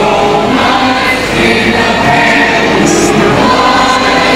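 A choir singing, many voices together holding long notes.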